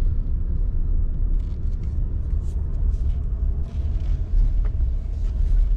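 Low, steady rumble of a car driving slowly, heard from inside the cabin, with a few faint clicks.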